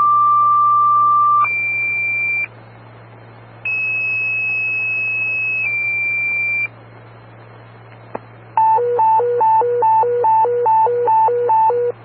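Fire dispatch radio tone-out over a steady hum. Two sets of two-tone sequential paging tones: a lower tone held about two seconds stepping up to a higher one, then a higher two-tone pair. About two seconds later comes a hi-lo alert tone that switches between two pitches about eight times.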